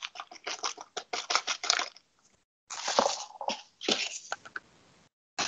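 A spoon stirring a thick homemade chocolate mixture in a small bowl: quick repeated scrapes and clinks against the bowl, in two runs with a short pause between.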